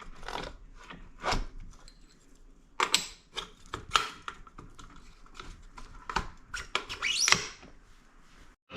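Scattered sharp clicks and knocks of workshop handling, as tools and bike parts are moved and set down. A short rising zip comes a little past seven seconds in.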